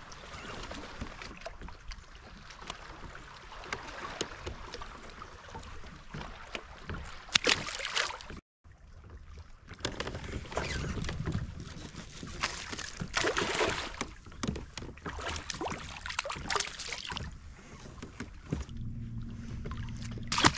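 Water splashing and sloshing around a kayak with wind on the microphone, as a bass is lifted from the water. The sound drops out for a moment about eight seconds in, and steady low notes of background music come in near the end.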